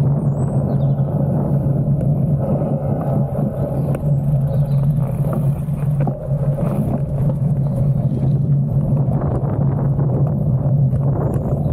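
Steady low rumble of a gravel bike riding along, its tyres rolling over tarmac and then a dirt path, with wind buffeting the handlebar camera's microphone and a few faint knocks from bumps.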